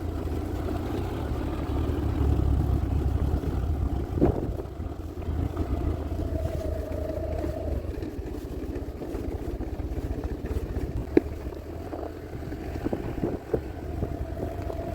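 Motor vehicle running steadily with a low engine and road rumble. A brief steady tone rises out of it about halfway through, and there are a few light knocks.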